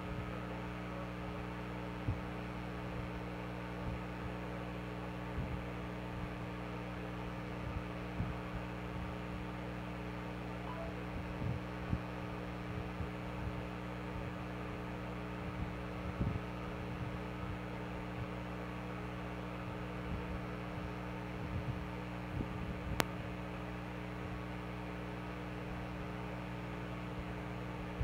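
Steady low hum made of several fixed pitches, with scattered soft low knocks and one sharp click about 23 seconds in.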